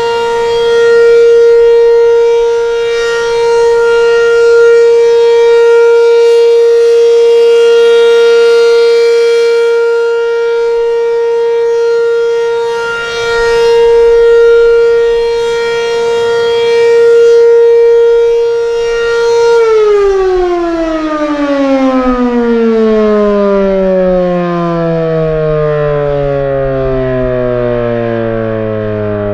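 B&N Mobil Directo BN52 tornado siren holding one steady tone, its loudness swelling and fading: the steady Alert signal. About two-thirds of the way in, it shuts off and winds down, its pitch falling steadily.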